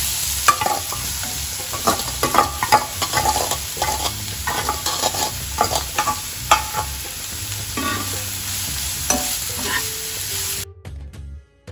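Grated carrots sizzling in ghee in a kadai while a steel ladle stirs them, scraping and clinking against the pan and the steel bowl, a quick run of clinks over a steady frying hiss. The sound briefly cuts out near the end.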